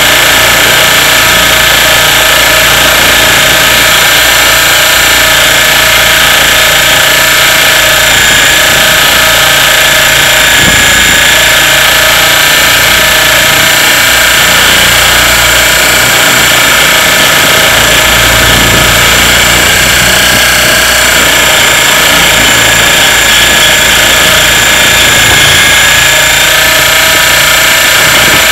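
Radio-controlled helicopter's motor and rotor heard from a camera on board the helicopter, a loud, steady mechanical whine with several fixed tones in flight.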